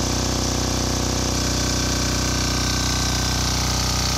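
Yanmar L48AE single-cylinder air-cooled diesel engine driving a generator head, running at a steady governed speed with an electric space heater connected as its load.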